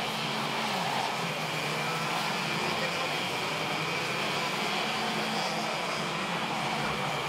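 Several racing kart engines running at speed, their pitch dipping and rising as the karts brake and accelerate through corners.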